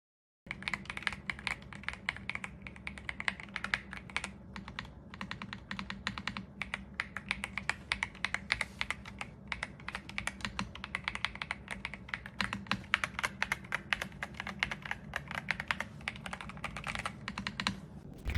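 Fast, continuous typing on a Royal Kludge R75 gasket-mounted mechanical keyboard: a rapid stream of key clacks with a few brief pauses, starting about half a second in. A burst of louder strokes comes right at the end before the sound cuts off.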